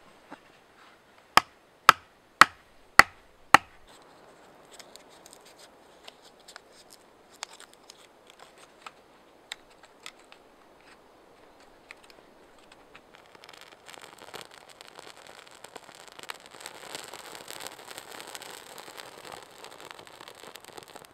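Five sharp strikes about half a second apart, then faint clicks and scratches of tinder being handled, and from about two-thirds through the crackling of tinder catching fire in a Swedish fire torch, growing stronger toward the end.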